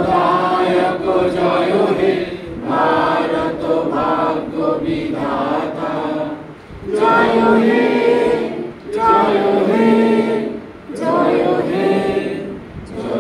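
Unaccompanied singing voices, chanting a slow song in long held phrases with short breaks about every two seconds.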